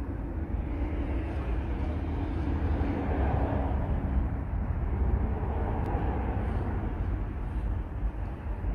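A vehicle passing by: its noise builds to a peak about midway and then fades, over a steady low rumble.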